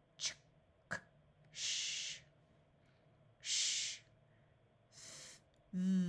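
A voice sounding out isolated consonant sounds for phonics practice: a short 'ch', a clipped 'k' and a long hissed 'sh', then 'sh' again, a soft unvoiced 'th', and a voiced 'th' at the end, each separated by a pause.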